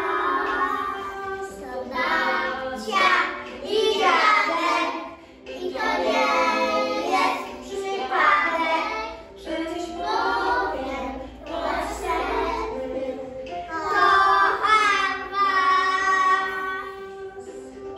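A small group of young children singing a song together in unison, phrase after phrase with short breaks between, the singing dying away near the end.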